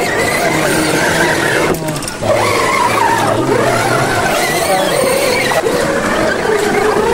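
Whine of a radio-controlled scale crawler's electric motor and geared drivetrain, rising and falling in pitch as the throttle changes, with a brief break about two seconds in.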